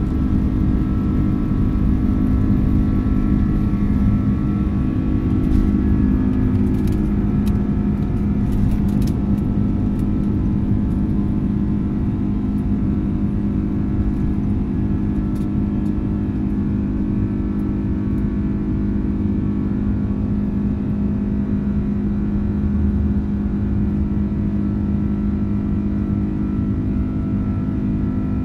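Airbus A330 jet engines at takeoff thrust, heard from inside the cabin: a loud, steady roar with a low hum of several steady tones, through the end of the takeoff roll and into the climb. A few faint clicks come between about six and ten seconds in, and the sound eases slightly after that as the aircraft climbs away.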